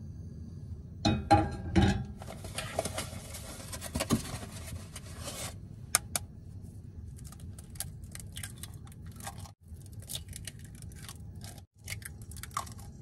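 A copper-coloured nonstick frying pan clatters down onto a gas stove's metal grate with a few loud knocks about a second in, followed by about three seconds of hiss. Then eggs are cracked against the pan and dropped in, making a string of small sharp taps and clicks.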